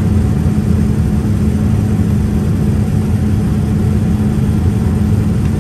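Steady roar of a Boeing 787-10's jet engines heard inside the cabin, with a steady low hum running under it.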